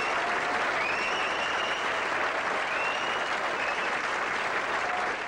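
Studio audience applauding steadily, with a few whistles rising above the clapping.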